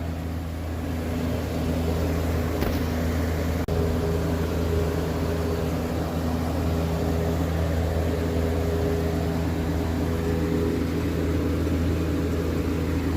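Recommissioned unit heater running, now working again: a steady, even hum from its fan and motor with several low constant tones, a higher tone growing stronger about four seconds in.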